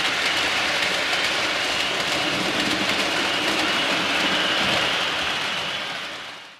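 Model railway train running along the layout's track, a steady rushing rumble of wheels and motor that fades out in the last second.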